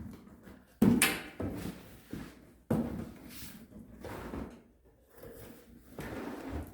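Packed saw parts and cardboard being handled: a sharp knock about a second in, a second one a little later, and scraping and rustling in between.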